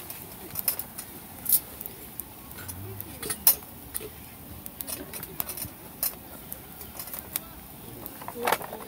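Light metallic clinks and ticks of cookware and utensils, scattered irregularly, with two sharper clinks about one and a half and three and a half seconds in.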